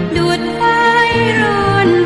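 Music: a Thai song with a long held, wavering melody note that slowly falls, over a steady beat.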